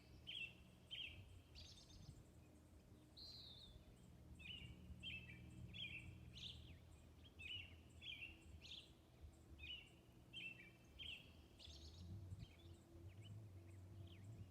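Faint songbirds chirping, with short, repeated high calls about once or twice a second, over a faint steady low background hum.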